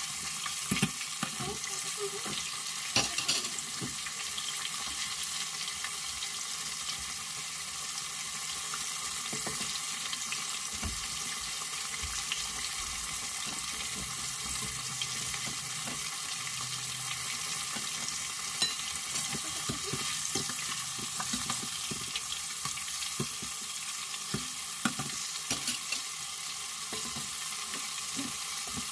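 Battered chicken deep-frying in a pot of hot oil: a steady sizzle, with a few sharp clicks about a second and three seconds in and scattered small pops later.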